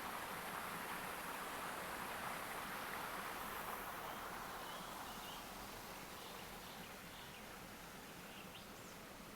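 Small creek running over stones, a steady rush that slowly fades, with a few faint bird chirps in the second half.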